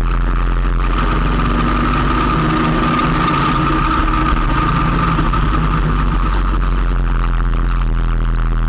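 Motorcycle engine running steadily while riding along the road, with a higher whine that swells through the middle and eases near the end.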